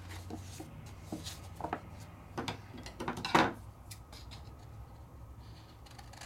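Light taps, clicks and rubbing of craft supplies and paper being handled on a work table, the loudest tap a little past halfway through.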